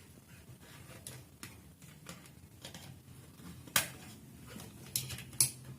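Irregular light clicks and taps of plastic toy figures being handled, with a sharper click about two-thirds of the way in and two more near the end.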